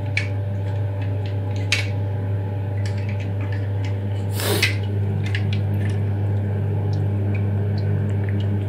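Plastic concealed-cistern fill valve handled in the hand: a few light clicks and a brief scraping rub about four and a half seconds in, over a steady low hum.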